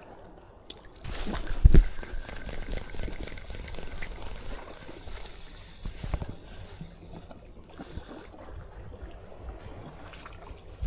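Water trickling and splashing, starting about a second in, with a thump just before the two-second mark.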